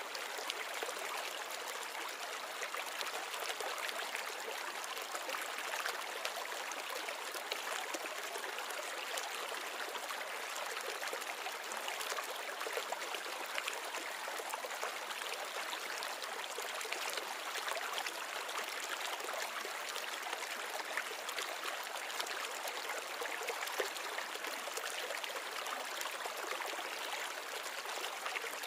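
Steady trickle of running water from a nano reef aquarium's circulation.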